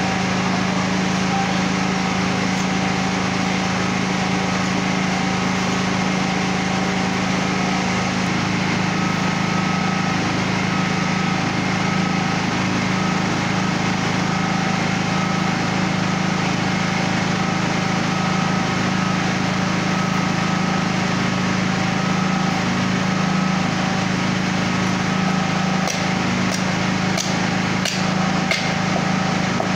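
A steady mechanical hum, like a motor or generator running, throughout. Near the end come about five sharp knocks: a cleaver chopping mutton on a wooden block.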